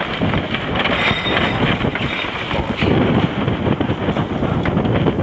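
Wind buffeting the microphone and water rushing along the hull of a heeled sailing yacht under way in rough water: a loud, steady, rough rushing noise.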